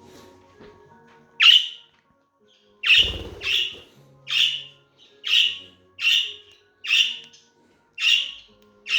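Budgerigar giving a run of short, sharp, upward-sweeping squawking calls, about one a second. A low thud comes about three seconds in.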